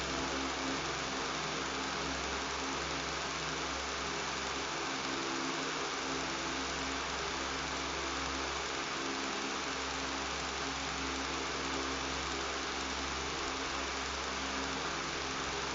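Electric fan running steadily, giving an even rushing whir with a low buzzing hum underneath.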